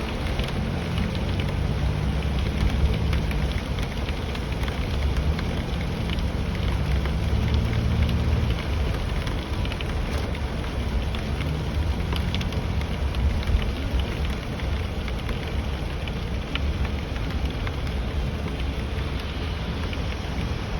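Steady rain with many small raindrop ticks, over the low rumble of a vehicle driving.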